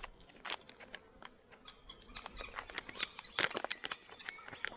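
Foil freeze-dried meal pouch crinkling and crackling in irregular sharp clicks as it is handled and pulled open at the top. The loudest crackle is about three and a half seconds in.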